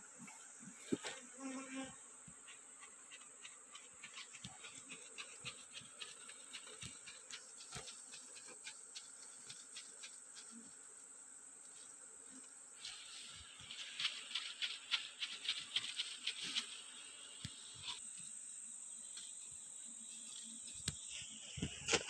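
Asian honey bees (Apis cerana) buzzing around an opened wooden box hive while the comb is handled, with rustling and crackling throughout that gets busier from about 13 to 17 seconds in. A steady high-pitched insect drone sounds the whole time.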